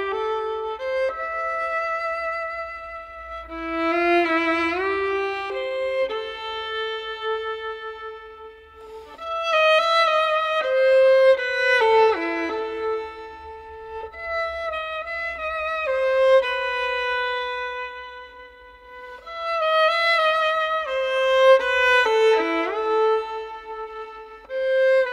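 Background music: a slow melody of long held notes with vibrato, sliding between some of them, with softer passages about a third and two-thirds of the way through.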